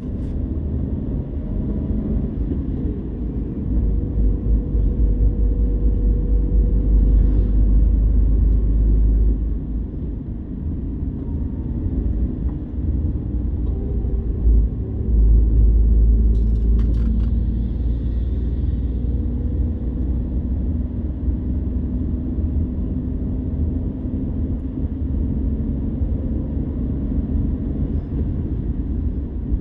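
Ride-along noise from a moving vehicle on a road: a heavy low rumble of wind and road noise on the microphone, with a faint engine hum beneath. The rumble swells louder from about four to nine seconds in, and again from about fifteen to nineteen seconds.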